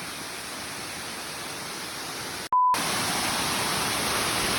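Waterfall rushing, a steady noise. About halfway it breaks off for a moment with a short beep, then comes back louder.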